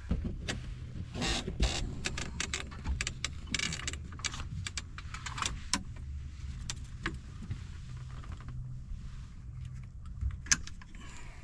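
A small electric motor hums steadily while scattered clicks, knocks and rattles of handling gear in a boat come and go, with a sharper knock near the end.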